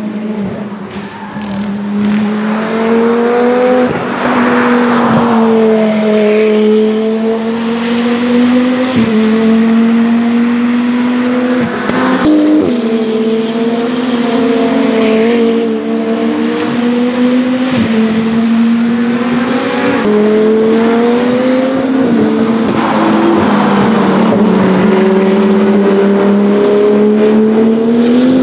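Race car engines running hard, among them the KTM X-Bow GT2's Audi 2.5-litre turbocharged five-cylinder. The loud note stays steady, dipping and climbing a little, with several short sharp cracks along the way.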